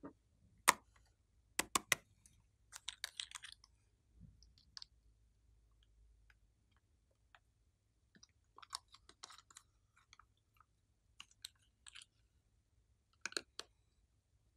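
Small plastic squeeze bottles being handled and squeezed to push out blobs of slime. Sharp plastic clicks, a few of them loud and close together, come a second or two in and again near the end. Short crackling runs of squeezing come around three seconds in and again around nine seconds.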